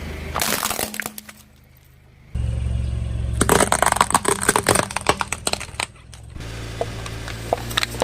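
A car's tyre rolling over crunchy toys and crushing them: a dense run of cracking and snapping over the low, steady hum of the car's engine. A short crunch comes near the start, and a few scattered cracks come near the end.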